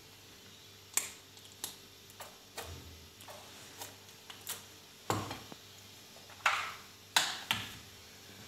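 Light kitchen handling sounds: scattered small clicks and taps of a spoon and dishes, with three louder, slightly longer noises in the second half as the filling and mayonnaise go onto a crepe.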